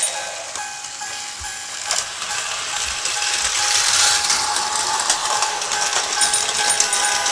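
A battery-powered Tomy toy train's small motor whining at a steady pitch, with sharp plastic clicks and rattles from the toy track and cars.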